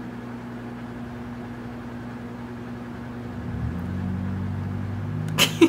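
A steady mechanical hum. About three and a half seconds in, a second, deeper hum starts up and the sound gets louder; a brief sharp sound comes near the end.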